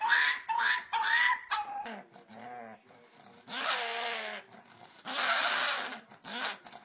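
A dog making odd vocal sounds: a quick run of short, high pitched yips, then a few longer, wavering calls.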